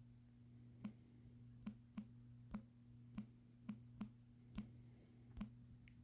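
Computer mouse clicking about nine times at an uneven pace, over a faint steady low hum.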